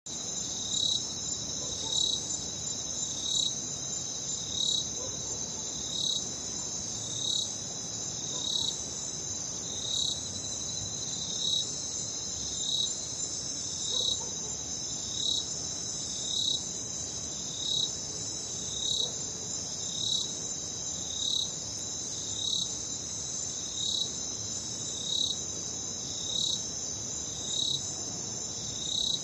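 Crickets chirping at night: a continuous high-pitched trill, with a lower chirp repeating evenly about once every second and a quarter.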